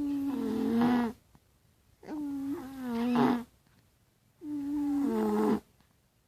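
Sleeping toddler snoring: three long, pitched snores about two seconds apart, each stepping down in pitch partway through.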